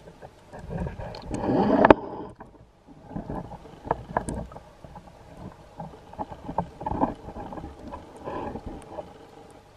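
Water sloshing with irregular knocks and clicks, over a low rumbling wash. A louder surge builds about a second in and cuts off sharply at about two seconds.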